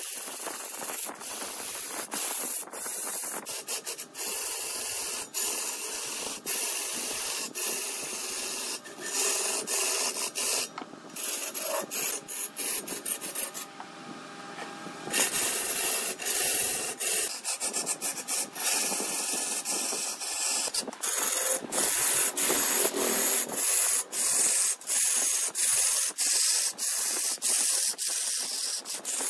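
Wood being turned on a large lathe: a steady scraping hiss of a tool against the spinning wood, broken by many short clicks.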